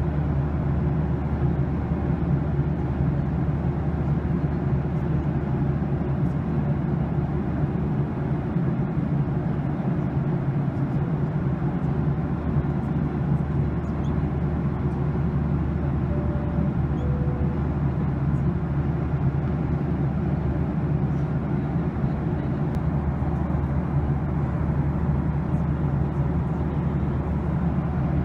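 Jet airliner cabin noise in cruise: a steady engine and airflow roar with a constant low hum. About halfway through, a faint two-note tone sounds, the second note lower.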